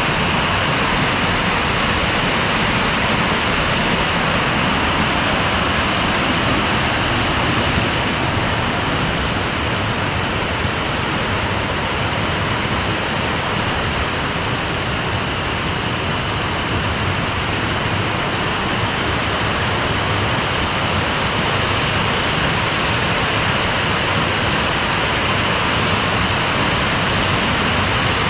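Small waterfall cascading over rock ledges: a steady, loud rush of falling water.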